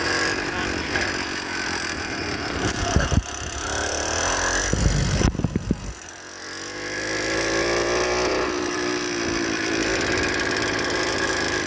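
Gas engine of a motorized bicycle kit running, with a few loud low thumps midway, then its revs rising and falling again.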